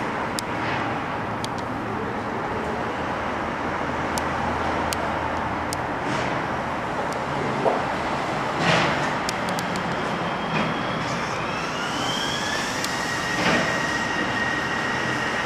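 Kobe Port Liner rubber-tyred automated guideway train running on its elevated concrete guideway, a steady rolling rumble with a few light clicks. About two-thirds of the way in, a whine rises in pitch and then holds steady to the end.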